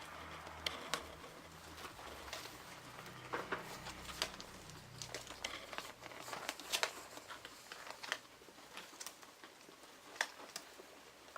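Irregular rustling and crinkling with scattered sharp clicks as guinea pigs move about in their bedding.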